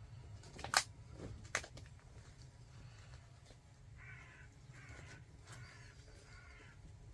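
A crow cawing four times in a row, harsh calls a little under a second apart. Before that, near the start, come two sharp knocks.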